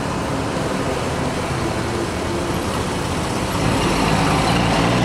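Road traffic and engine noise heard from a moving car: a steady rumble that grows a little louder past the middle.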